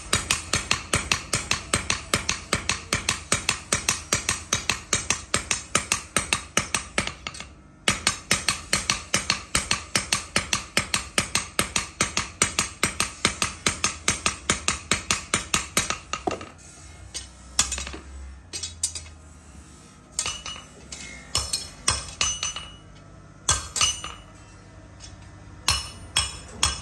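Hammer blows on steel being forged into a sword blade: a fast, even run of strikes, about four a second, then slower, irregular strikes over the last ten seconds.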